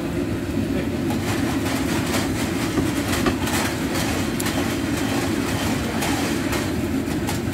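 Noodles frying in hot oil in a wok, sizzling with irregular crackles and pops over a steady low rumble.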